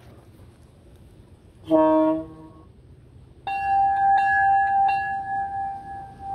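Onboard sound unit of a large-scale garden-railway diesel locomotive: a short horn toot about two seconds in, then the locomotive bell ringing from about halfway and fading near the end.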